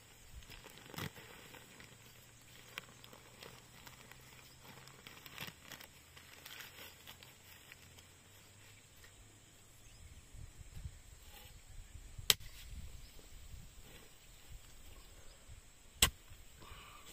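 Faint rustling and scraping of soil and a plastic nursery bag as a potted orange-tree seedling is unbagged and set into a planting hole by hand. Two sharp clicks stand out, the second near the end.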